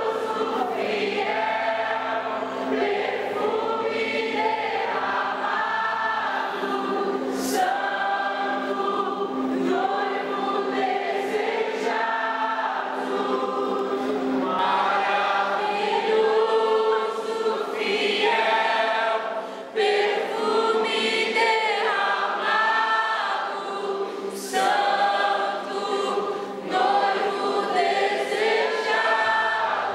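A congregation singing a slow worship song together, many voices in long held phrases, over a steady held low note.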